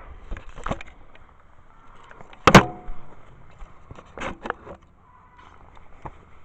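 Scattered clinks and knocks of hardware and hand tools being handled while the mower's engine is bolted down to its deck. The loudest is a single sharp clank about halfway through, with a brief ring after it.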